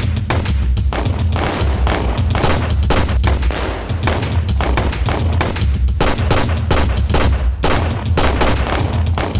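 Rapid gunfire from several guns, shots coming several a second and overlapping, with a couple of short lulls, over a steady low rumble.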